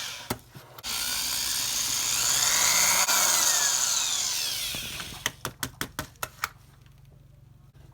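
Power drill with a small pilot bit drilling into the rivet of a die-cast toy car, the motor's whine rising and falling in pitch as it runs. It stops, and a quick string of short clicks follows.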